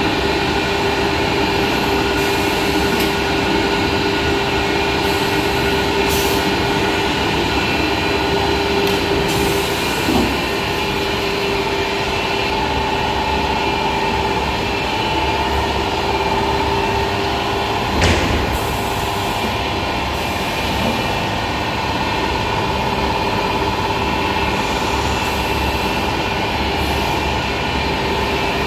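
CNC machining center running with a steady mechanical hum and whine, with a sharp clunk about two-thirds of the way through and a lighter knock earlier.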